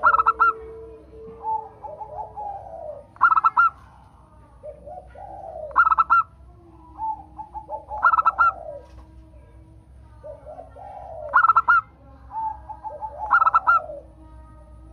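Local zebra dove (perkutut) singing its song over and over: each phrase is a run of quick cooing notes with a loud, bright burst, about six phrases in all, two to three seconds apart. A lower, softer run of coos sounds under a few of the phrases.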